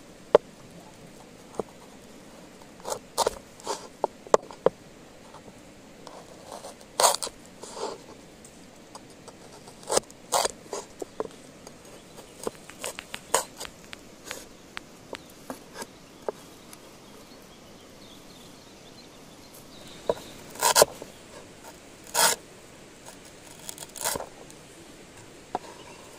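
Broad-bladed knife slicing shallots on a wooden stump chopping board: sharp, irregular cuts and knocks of the blade on the wood, in short clusters with pauses between.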